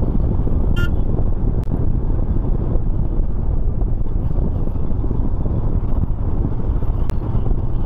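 Royal Enfield Himalayan motorcycle's single-cylinder engine running steadily under way, mixed with wind rumbling on the microphone. A short high-pitched beep comes about a second in.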